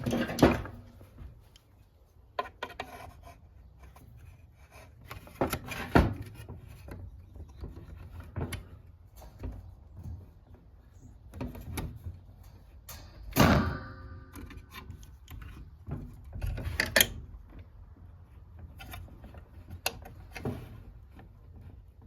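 Hands working clear plastic tubing onto a chemical dispenser's ports: irregular clicks, rubbing and light knocks of plastic being pinched and pushed down, with a sharper knock and a brief ring about halfway through.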